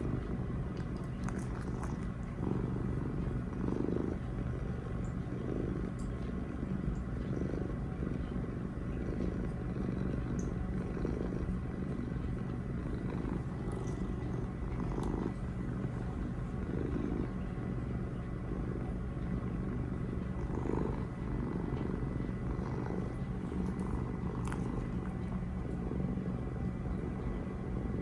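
Domestic tabby cat purring steadily while being scratched under the chin, the purr swelling and easing with each breath about every second and a half: a contented cat.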